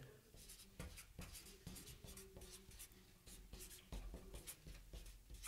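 Faint, irregular scratching strokes of handwriting, with a dull low bump about four seconds in.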